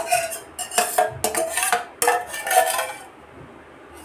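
Stainless-steel utensils scraping and clinking against a steel plate as boiled sangri pods are scooped onto it: a quick run of scrapes and clinks for about three seconds.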